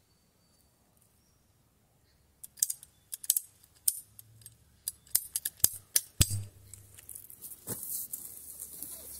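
Ratcheting PEX pipe cutter clicking and snapping shut through black PEX pipe, a quick run of sharp clicks that starts a couple of seconds in. Near the end a crunching rustle comes in as the cutting stops.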